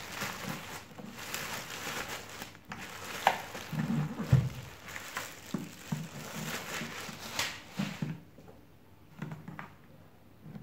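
Thin clear plastic bag crinkling and rustling as it is pulled off an electric foot massager, with a few low bumps of the unit being handled about four seconds in; the rustling dies down about eight seconds in.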